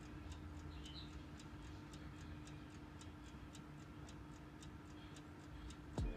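Mechanical oven timer ticking evenly, a few ticks a second, over a steady low hum from the running oven. A short low thump comes at the very end.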